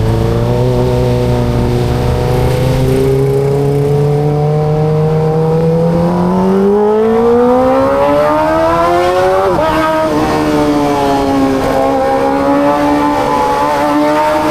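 Kawasaki ZX25RR's 250 cc inline-four engine pulling under throttle: its pitch climbs steadily for several seconds, drops sharply at a gear change about two-thirds of the way through, then holds fairly steady.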